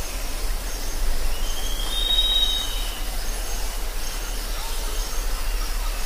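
Forest ambience: a steady hiss with short high chirps recurring, and one clear high whistled note lasting about a second and a half, starting about a second and a half in.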